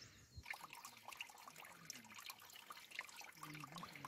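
Faint trickle of a small stream running through a gap between rocks, with many small drips and plinks.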